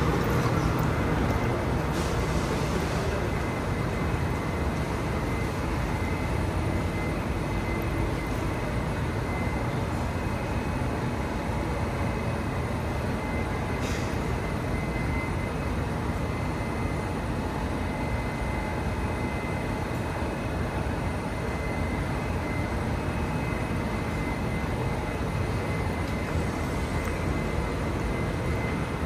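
Singapore MRT Thomson-East Coast Line train running between stations, heard from inside the carriage: a steady rumble of wheels on track with a faint high, even whine over it.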